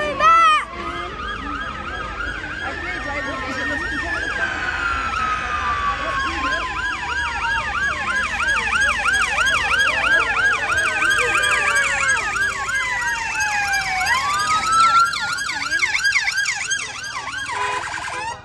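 Several police vehicle sirens sounding at once: slow wails rise and fall over fast yelps. A brief loud whoop comes about half a second in.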